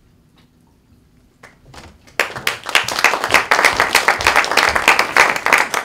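A small theatre audience applauding at the end of a scene. The clapping breaks out suddenly about two seconds in, after a near-quiet start, and stays dense and even.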